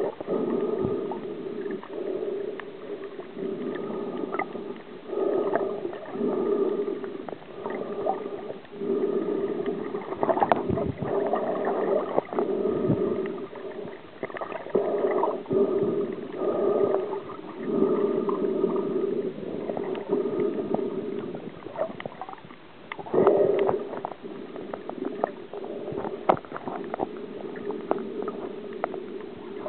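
Muffled, gurgling water sound as picked up by a camera underwater while snorkeling, coming in uneven surges every second or two with scattered small clicks.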